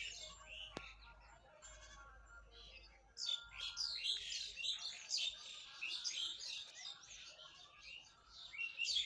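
Small birds chirping in quick, dense, high-pitched notes, faint at first and much busier and louder about three seconds in.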